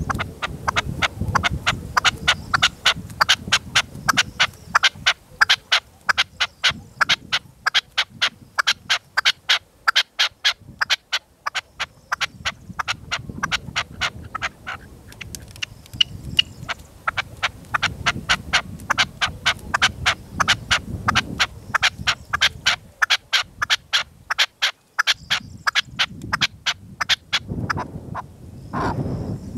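Red-legged partridges calling in a long run of short, sharp, evenly repeated notes, about three a second, pausing briefly now and then. Gusty wind rumbles on the microphone underneath.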